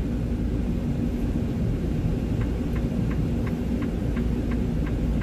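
Low, steady diesel rumble of a Freightliner Cascadia semi truck heard inside its cab as it creeps forward, with a steady hum over it. From about halfway through, light ticks come at roughly four a second.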